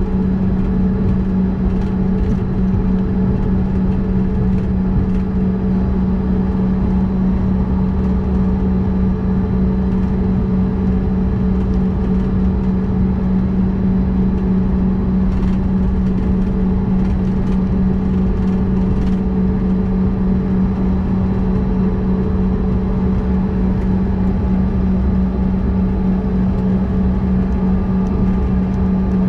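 Steady cabin noise of a CRJ-200 regional jet taxiing, its rear-mounted GE CF34 turbofans at idle: a strong constant low hum over a rumbling drone. A few faint ticks come about halfway through.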